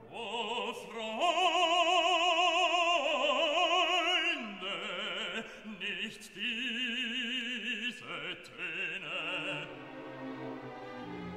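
Operatic singing backed by music: a classical voice holds long notes with wide vibrato, stepping between pitches, and softens near the end.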